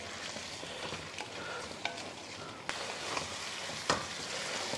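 Chicken pieces frying in oil and masala in a steel kadai, sizzling steadily, while a spatula stirs them with a few sharp knocks against the pan.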